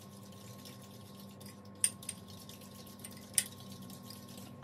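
Metal spoon stirring in a ceramic bowl, clinking sharply against the side twice, over a faint steady hum.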